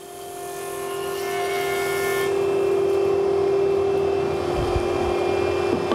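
Axminster Trade planer-thicknesser with a spiral cutter block of indexable tungsten-carbide inserts, running with a steady hum. A board finishes its pass over the cutters about two seconds in, and the hiss of the cut stops. The machine then runs free, with a low thump near the middle.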